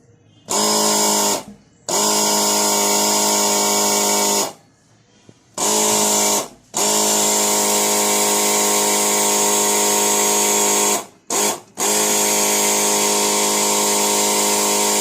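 Thermal fogger's electric self-start air compressor running in repeated presses of the start button: about six bursts of a steady motor hum with hiss, each starting and stopping abruptly, the longest about four seconds. The fogger does not fire; it is failing to start.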